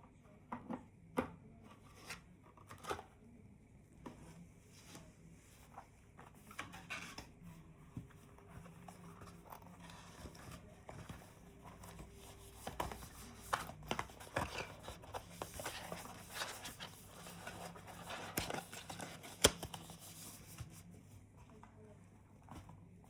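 Hands handling packaging: rustling and crinkling of paper or plastic with scattered clicks and taps, busiest in the second half, with one sharp click near the end.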